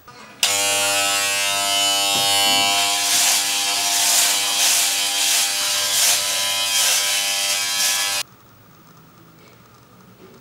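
Electric razor buzzing on the face. It switches on about half a second in and cuts off suddenly about eight seconds in, rasping louder several times as it is drawn over the stubble.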